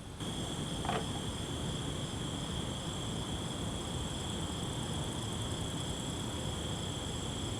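Steady night-time chorus of insects, a constant high-pitched drone over a low background hum, with one short falling chirp about a second in.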